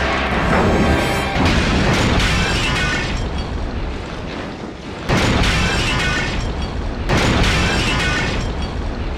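Film explosion sound effects: sudden booming blasts about a second in and again near five and seven seconds, each dying away, over a loud music score.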